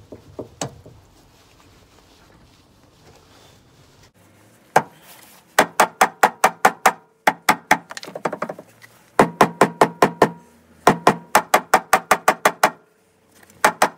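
Hammer blows on the corroded, seized steel Westfalia detachable tow bar of a Range Rover L322, struck to free it from its receiver. After a few quiet seconds comes a single blow, then bursts of quick ringing metal strikes, about six a second, with short pauses between the bursts.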